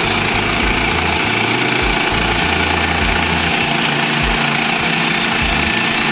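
Woodland Mills portable band sawmill running steadily, its gas engine under load as the band blade cuts through a log on its first cut.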